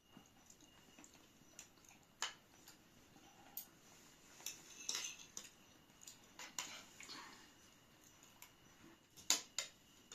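Faint, scattered clinks and taps of spoons against plates and drinking glasses at a meal, with two sharper knocks close together near the end.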